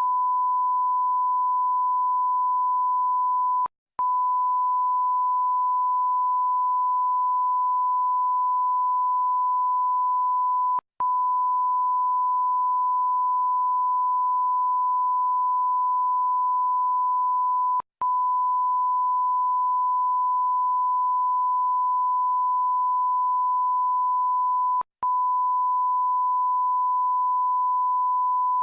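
Bleep sound effect: a steady, unbroken 1 kHz sine tone, the classic censor bleep. It drops out for a split second with a faint click four times, about every seven seconds, then resumes.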